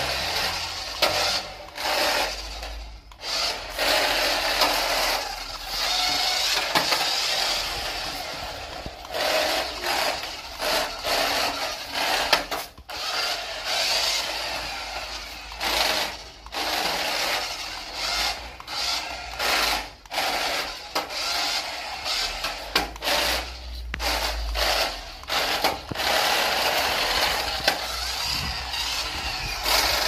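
Small electric motor and plastic gearbox of a toy remote-control car whirring in many short stop-start bursts as it drives, its wheels rolling over a rough terrazzo floor.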